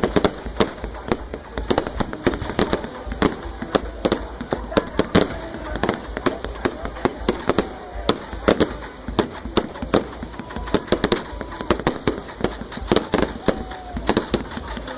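Fireworks display: a dense, continuous string of sharp crackling bangs and pops, several a second, without pause.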